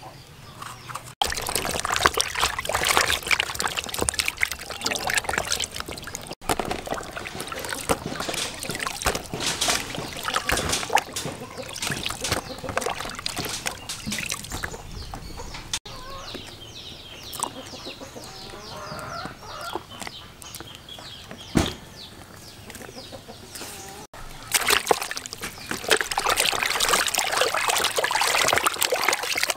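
A knife scraping and cutting through bitter gourd as it is hollowed out. Near the end, water sloshes and splashes as hands wash raw pork in a basin.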